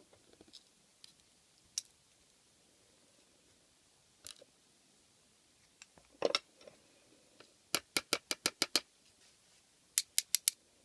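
A series of sharp clicks from handling a lock and handcuffs: a few scattered single clicks, then a quick, even run of about seven clicks, roughly six a second, and another run of four near the end.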